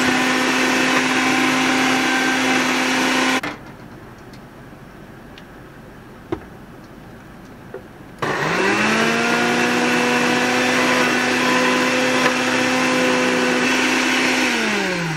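Countertop blender blending peppers. It runs steadily until about three and a half seconds in and stops. About eight seconds in it starts again, rising up to speed, runs steadily, and winds down at the very end.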